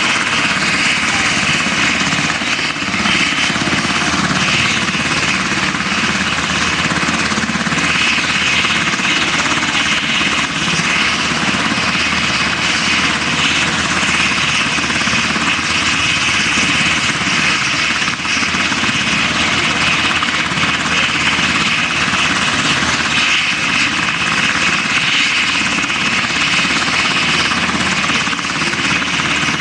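Australian Army Black Hawk helicopters running on the ground with rotors turning: a loud, steady noise of rotor blades and twin turboshaft engines, with a steady high whine.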